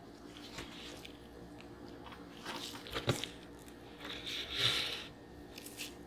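Hands in nitrile gloves handling a cardboard KFC chicken bucket on a wooden cutting board: scattered light clicks, a sharp knock about three seconds in, and a papery rustle a little after four seconds as the bucket is lifted.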